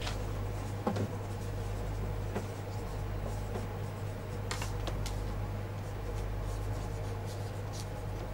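Pen writing on paper at a desk: scattered short scratches and paper rustles over a steady low room hum, with a light knock about a second in.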